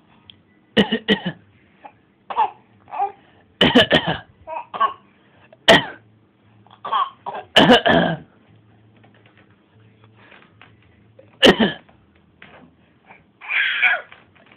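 A baby's put-on coughs: about a dozen short coughs at uneven gaps of one to three seconds, some with a bit of voice in them.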